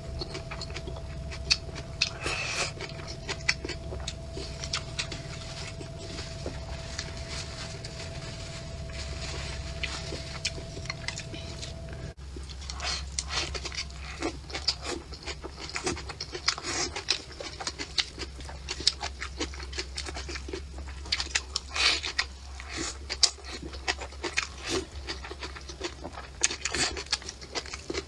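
Close-up eating sounds: a person chewing and smacking on food, many small quick clicks and smacks over a steady low hum. A faint steady tone stops about twelve seconds in, and the mouth sounds grow busier after.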